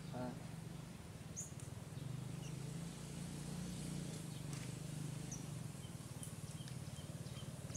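Outdoor ambience: a few short, high bird chirps and, between 6 and 7 seconds in, a faint row of evenly spaced ticks, over a steady low hum.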